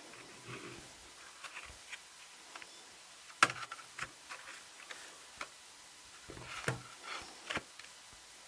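Cardboard digipack album being handled and opened: scattered clicks and taps with soft rustling, the sharpest click about three and a half seconds in.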